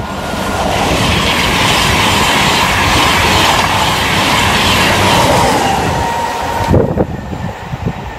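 A train passing at speed: a loud rush of wheel and air noise that swells over the first second, holds steady, and drops away suddenly near the end, leaving wind buffeting on the microphone.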